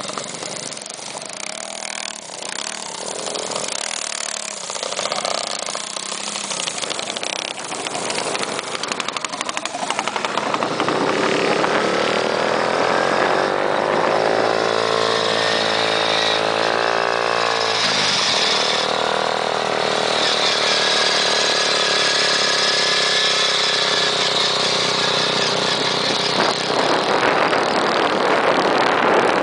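Small motorized-bicycle engine running and pulling away: about a third of the way in its pitch climbs steadily as it gathers speed, dips briefly, then holds steady at a high speed. Wind rushes on the microphone throughout.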